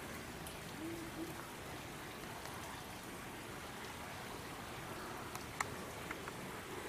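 Faint steady rushing hiss of outdoor background noise, with a few small clicks in the second half.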